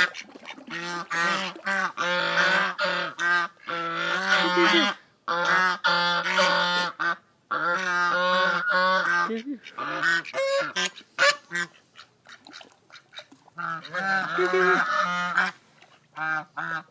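Geese honking in repeated bouts of rapid calls, with a lull about two-thirds of the way through and a few short honks near the end.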